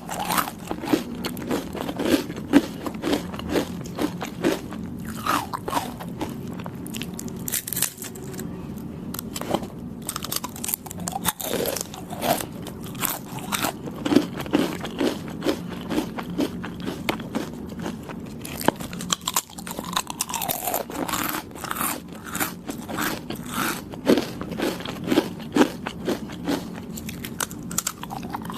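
Close-up chewing of soft, chewy Thai desserts: many quick, sticky, wet mouth clicks, with bites and chews going on without a break.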